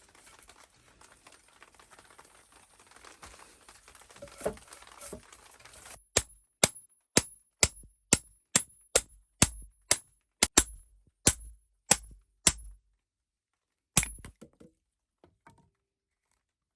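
A tool striking wood: a run of sharp blows, about two a second, for around six seconds, then one last blow after a short pause, with a couple of faint knocks earlier.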